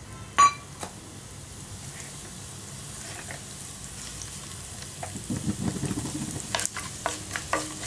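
Cumin, fennel seeds, cinnamon and cloves sizzling in hot oil in a nonstick kadai, the tempering of whole spices; the crackling picks up from about five seconds in, with several sharp pops near the end. A single ringing metal clink about half a second in.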